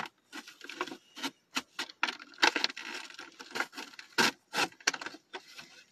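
Action figure packaging being worked open by hand: irregular rubbing, scraping and clicking of cardboard and plastic.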